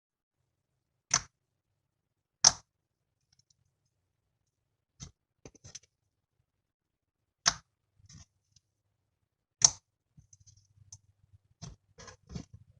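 Clear slime made from clear PVA glue and borax activator being handled, giving sharp clicking pops every couple of seconds as air pockets burst, with quieter small clicks and a soft low squish near the end.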